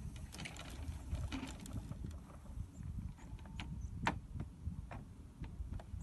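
Low, uneven rumble of wind on the microphone, with scattered clicks and soft knocks, the sharpest about four seconds in.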